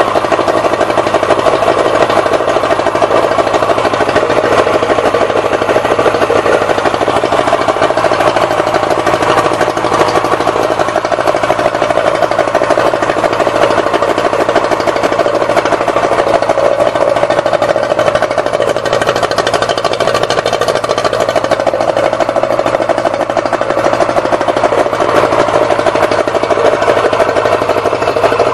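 Yamaha 70 HP two-stroke three-cylinder outboard engine running steadily at idle with its cowling off, with no revving.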